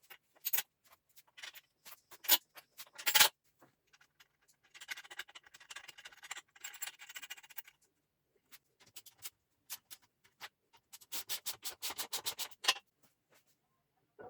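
Hand work on metal lathe parts: scattered sharp clicks and knocks, a stretch of scraping from about five to eight seconds in, and a quick run of clicks near the end.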